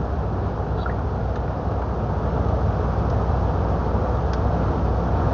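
Steady drone inside a moving truck's cab: the diesel engine's low hum mixed with road and tyre noise, unchanging throughout.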